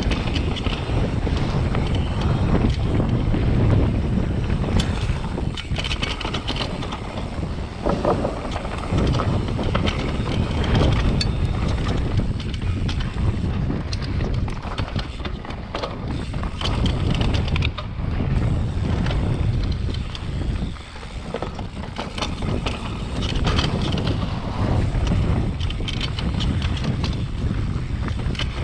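Mountain bike descending a rough trail at speed: tyres on dirt with frequent rattles and knocks from the bike over bumps. Heavy wind rumble on the microphone throughout.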